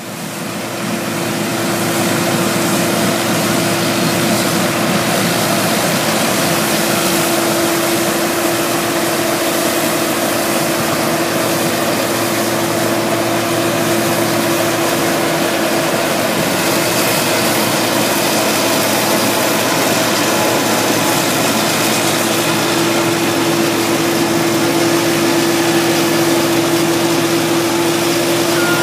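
New Holland 3550 AL combine harvester working through a barley crop, its six-cylinder Iveco/Fiat diesel engine and threshing machinery making a loud, steady drone with a held mid-pitched whine. The sound fades in over the first second or two, then stays constant.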